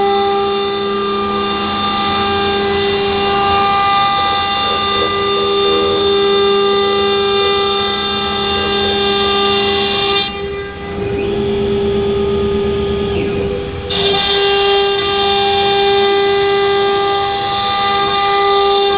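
CNC router's 3.2 kW water-cooled spindle running while cutting 15 mm MDF: a steady, high-pitched whine with the hiss of the bit in the board. For a few seconds in the middle the whine changes, and a higher tone rises, holds and falls away.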